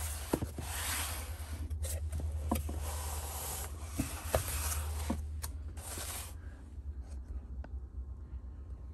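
Small cardboard boxes being slid and scraped across a tabletop and set down, with several light knocks as they are placed. The handling goes quiet about six seconds in, leaving a steady low hum and a few faint ticks.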